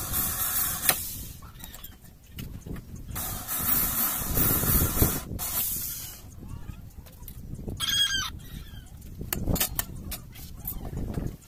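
Electric drill running in bursts, boring into wooden boards: a short burst at the start and a longer one from about three to six seconds in. A short animal call about eight seconds in, then sharp clicks and clacks as quick-release bar clamps are taken off.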